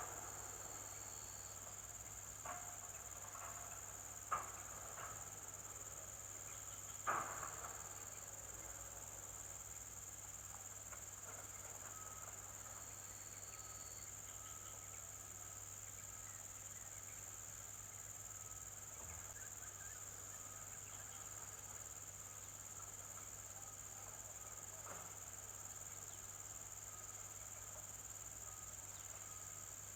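Steady high-pitched chorus of insects, with a faint low hum beneath it. A few sharp knocks come in the first seven seconds.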